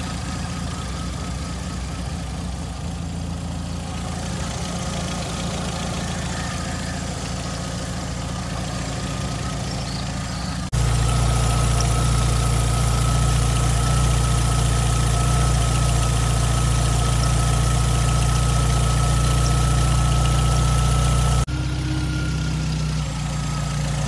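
Volkswagen four-cylinder petrol engine idling steadily, heard up close in the open engine bay. The sound jumps louder and fuller about ten seconds in and drops back again near the end, with a thin steady high tone over the louder part.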